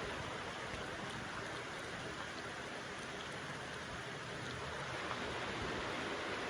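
Steady rainfall, an even hiss of rain with a few faint separate drops ticking.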